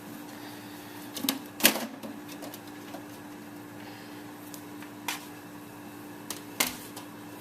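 Sharp metal clicks and clunks from handling a desktop computer case as its screws and side panel come off. There are two knocks about a second and a half in, the second the loudest, and another pair near the end, over a faint steady hum.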